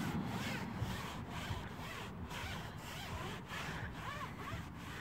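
Foam applicator pad rubbed back and forth over a rubber tire sidewall, spreading tire dressing: a soft scrubbing at about two strokes a second.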